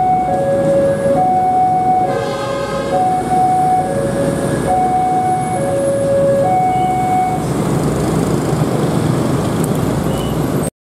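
Railway level-crossing warning signal sounding as a two-tone electronic alarm, a higher and a lower tone alternating, each held for under a second, over the noise of a passing railbus and idling motorcycles. The alarm stops about seven seconds in, and the traffic noise rises as the motorcycles move off.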